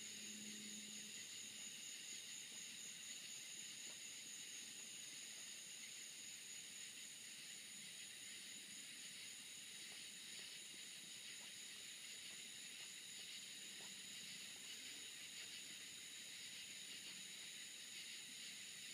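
Faint, steady high-pitched chorus of night insects trilling, with no break.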